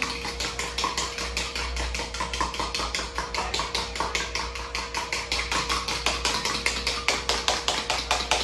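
A fork beating an egg in a small plastic bowl: fast, even tapping, about seven or eight strokes a second, as the egg is whisked with salt and pepper.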